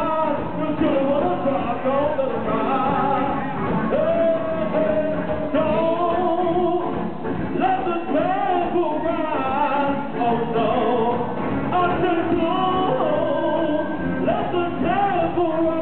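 Live band performing: a male vocalist sings with gliding, bending lines over electric bass, electric guitar and drums.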